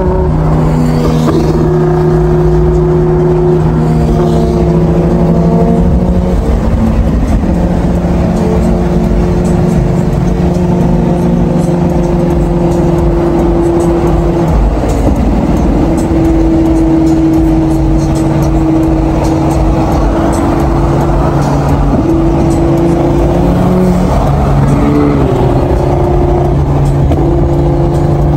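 Steady road and engine noise from inside a car cruising at highway speed, with music playing over it in long held low notes that change every few seconds.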